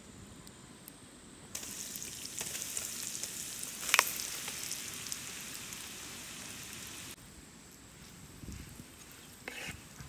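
Floured chicken pieces sizzling in hot oil in a wide steel pan. The sizzle starts suddenly about a second and a half in, has one sharp pop about four seconds in, the loudest sound, and cuts off suddenly after about seven seconds. A wooden spoon stirring the pan gives a few light knocks near the end.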